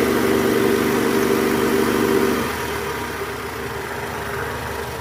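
Toyota Camry 2AZ-FE four-cylinder engine running with a steady growling drone ('ngorok') from its accessory-belt tensioner, whose spring has gone weak. About two and a half seconds in, the growl stops and the engine carries on at a quieter idle.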